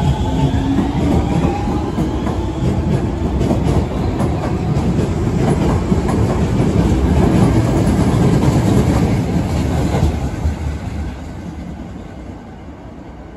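Osaka Metro Chuo Line 20 series electric train running past. A rising motor whine in the first couple of seconds gives way to wheel rumble and clickety-clack over rail joints, loudest about two-thirds of the way through and fading away near the end.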